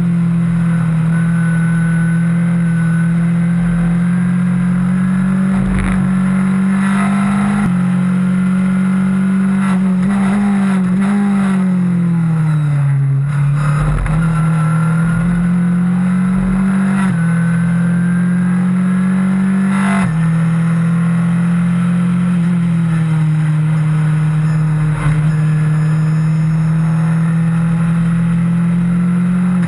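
Onboard sound of a Skip Barber formula race car's engine running hard at racing speed. The engine note changes pitch in steps at several points as the driver changes gear, and it sinks smoothly about halfway through as the car slows for a corner, then climbs again.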